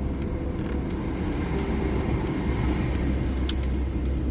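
Ford Verona 1.8's engine and road noise heard from inside the cabin as the car pulls in slowly, a steady low rumble with scattered light clicks, one sharper click about three and a half seconds in.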